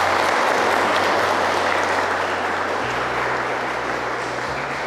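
Wedding guests applauding, a full round of clapping that slowly fades.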